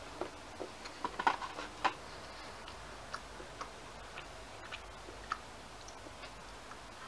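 Faint, irregular small clicks and ticks, with a quick cluster of sharper clicks from about one to two seconds in, then single ticks every half second or so.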